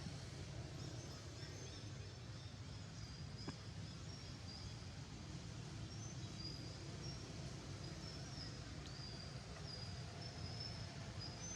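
Faint outdoor background noise with a low steady hum, with short high-pitched chirps scattered throughout.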